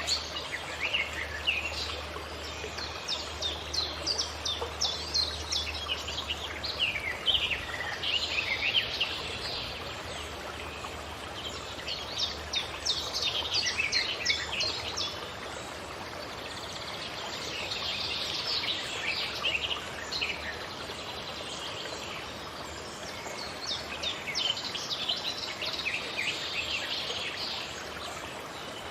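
Wild birds singing in bouts of quick, high chirps and trills, with short lulls between them, over a steady background hiss of forest ambience.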